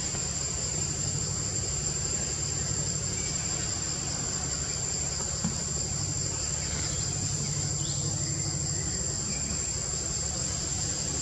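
Steady, high-pitched insect chorus in tropical forest, a continuous shrill drone, over a low steady rumble.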